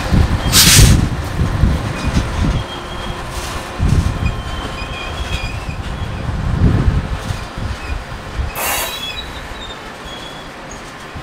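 Diesel genset switcher locomotive moving a covered hopper car: a heavy low rumble of engine and rolling wheels that fades, with faint wheel squeal. Two short hissing bursts, one about half a second in and one near the end.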